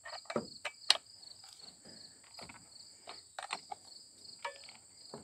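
A steady high-pitched chorus of insects, with scattered light clicks and knocks from handling the chainsaw as its chain tension is adjusted.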